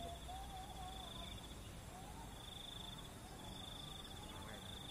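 An insect trilling in one high, rapidly pulsing note, breaking off for about a second a couple of times, over a faint low outdoor background.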